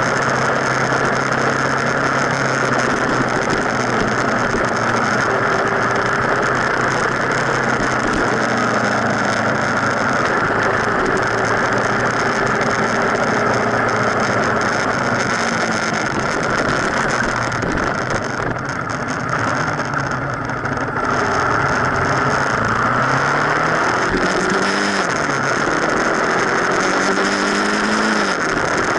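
Motorcycle riding along, heard from a camera on the front fork: a steady rush of wind and road noise over the engine. About two-thirds through it eases off, then the engine pitch climbs as it revs up, with a sudden drop near the end like a gear change.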